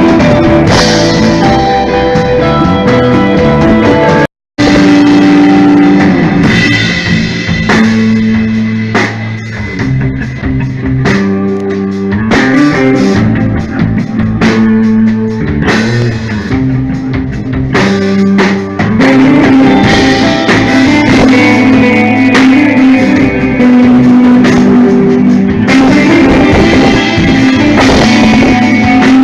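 Instrumental desert rock played live by a guitar, bass and drums trio: electric guitar over bass guitar and drum kit. The sound cuts out completely for a split second about four seconds in, plays more softly for a stretch after that, and grows fuller and louder about nineteen seconds in.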